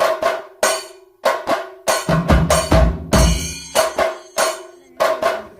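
Percussion-led background music: sharp drum hits several times a second over a held low tone and deep bass thumps, stopping abruptly at the end.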